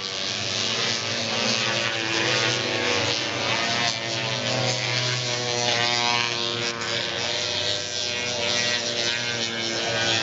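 Several single-cylinder two-stroke racing snowmobiles running at once, their engines buzzing at different pitches that rise and fall as they throttle and pass.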